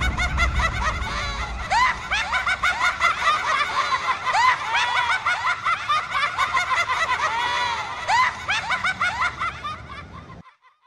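Manic, high-pitched cackling laughter, a rapid run of rising-and-falling 'ha's, fading over the last few seconds and cutting off just before the end.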